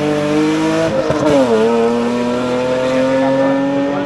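Rally car engine at high revs, climbing in pitch as it accelerates. The pitch dips briefly about a second and a half in at a gear change, then rises steadily again.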